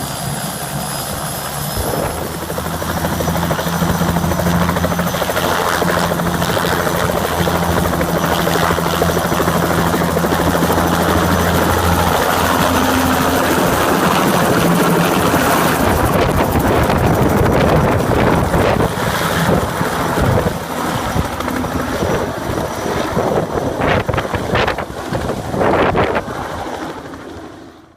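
Helicopter flying close overhead: a loud, steady rotor and engine drone with a low hum, turning rougher and gustier in the second half, then fading out quickly at the very end.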